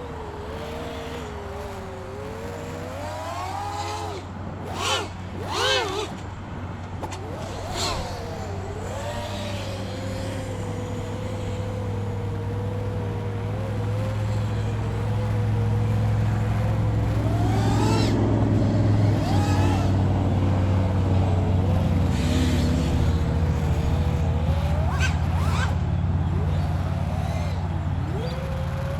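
Nazgul Evoque F5x V2 FPV quadcopter's motors and propellers buzzing in flight, the pitch wavering with the throttle and jumping up in several brief punches. A low rumble under the buzz grows louder through the flight.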